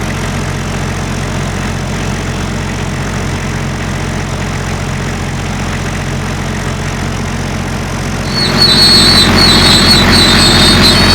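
An engine running steadily. About eight seconds in it gets louder and a high whine joins it.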